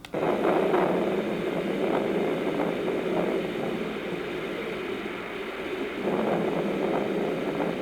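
Thunder sound setting of a small white-noise sound machine playing: a steady wash of noise that comes on abruptly, with little deep bass and a gentle swell about six seconds in.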